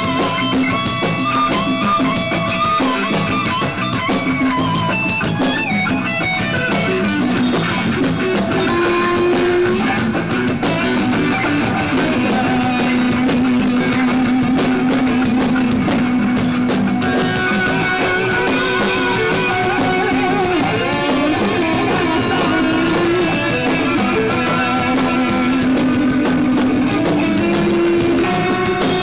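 Live instrumental rock-blues jam by a band: electric guitar lead lines with held, wavering notes over bass guitar and drum kit.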